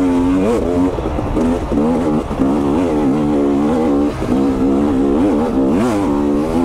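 2022 KTM 250 XC two-stroke dirt bike engine being ridden, its pitch rising and falling again and again with the throttle. It pulls and revs out cleanly after adjustments to its air bypass screw and power valve screw.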